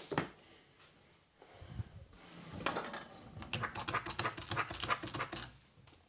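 Palms rubbing together with massage cream, a fast, slippery rhythm of strokes that builds from about two seconds in and stops shortly before the end. A brief sound comes at the very start.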